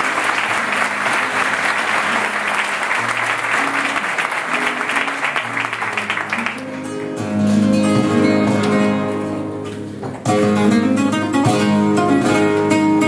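Audience applause over a flamenco guitar. The applause dies away about six seconds in, and the acoustic flamenco guitar plays on alone, with a sharp loud entry about ten seconds in.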